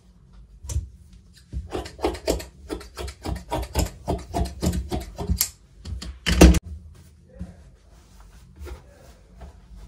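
Large tailor's shears snipping through cotton blouse fabric in a quick run of cuts, about three a second, with a loud knock about six and a half seconds in. After it come softer sounds of fabric scraps being rustled and gathered.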